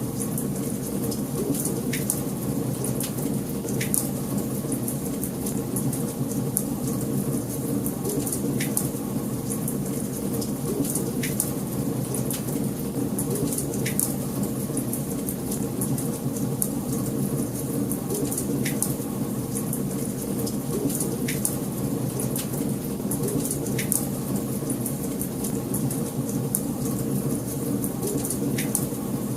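Wood fire burning in a fireplace: a steady low rumble of flames with constant fine crackling and sharp, irregular pops every couple of seconds.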